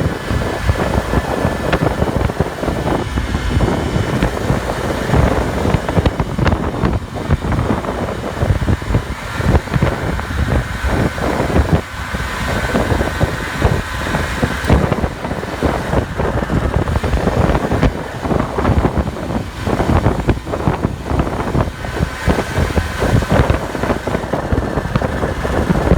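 Small moped scooter engine running, with wind buffeting the microphone.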